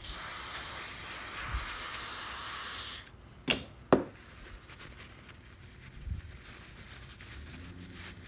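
Aerosol spray can hissing steadily for about three seconds, spraying cleaner onto greasy lock parts, then stopping, followed by two short sharp clicks of small metal parts being handled.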